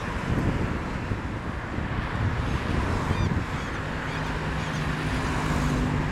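Outdoor ambience of wind rumbling on the microphone with scattered high bird chirps; from about four seconds in the steady hum of road traffic engines joins.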